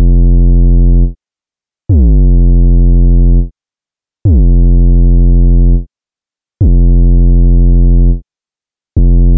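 An 808-style bass synthesized in Serum plays the same low note over and over, about every two and a half seconds. Each note opens with a quick downward pitch drop, the kick-like punch, and then holds a steady tone before cutting off. The drop comes from an LFO envelope modulating the master tune, and its shape is being redrawn between notes, so the attack changes from note to note, sharper and shorter in the later notes.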